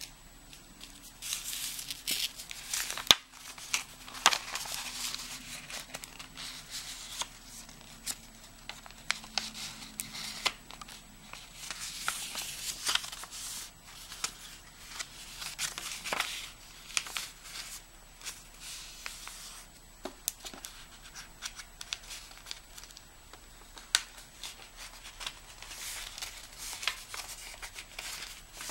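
A sheet of paper being folded by hand into a paper airplane: irregular crinkling and rustling as it is bent and slid across a table, with many short sharp clicks as the folds are pressed into creases.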